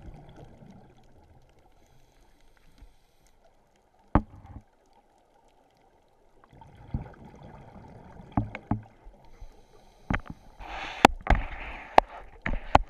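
Underwater scuba-dive sound heard through a camera's waterproof housing: a muffled low rumble of water with scattered sharp clicks. Near the end comes a hissing rush of diver's exhaled regulator bubbles.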